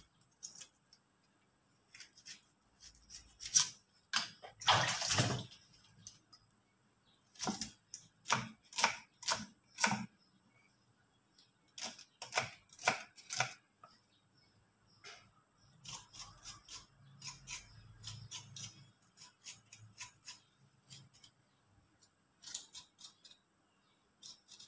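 Small kitchen knife cutting small red onions on a round wooden chopping board: irregular clusters of short, sharp knocks of the blade on the wood, with quieter scraping as the skins are peeled off by hand.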